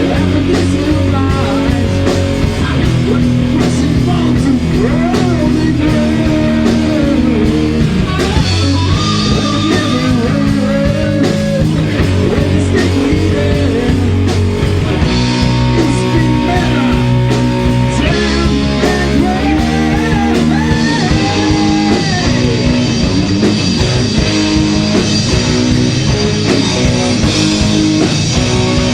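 Heavy metal band playing loud distorted electric guitars over bass and a drum kit, with a lead line bending up and down in pitch. The low end changes about two-thirds of the way in.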